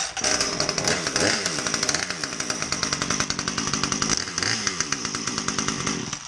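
Two-stroke chainsaw engine running and being revved, its pitch rising and falling, dying down near the end.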